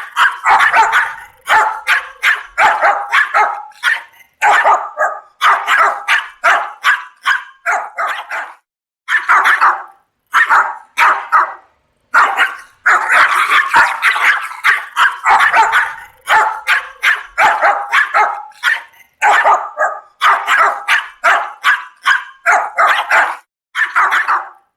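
Chihuahua barking angrily: rapid volleys of sharp, high-pitched yaps in bursts of several barks, broken by short pauses.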